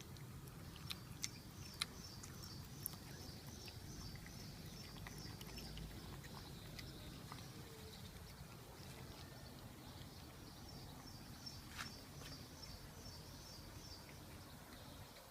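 A cat chewing and licking boiled egg, heard as scattered soft clicks and smacks. Behind it a rapid, high-pitched chirping runs for several seconds, stops, and comes back after a few seconds.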